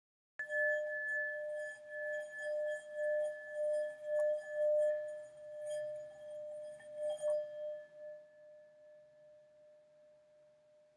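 Singing bowl rung with a wooden mallet: a sudden strike, then a low tone and a higher tone that swell and pulse for about seven seconds, with a few light clicks of the mallet. The sound then slowly fades out.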